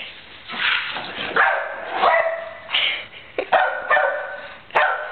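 Dogs playing tug of war over a toy, making a string of short barks and growls.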